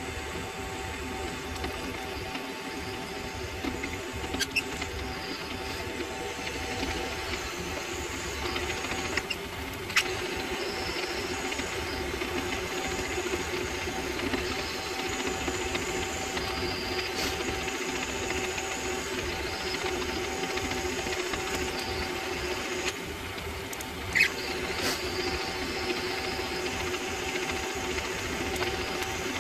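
Benchtop mini lathe running steadily while a twist drill in the tailstock chuck bores into the spinning workpiece. A few sharp clicks stand out over the steady running, the loudest about 24 seconds in.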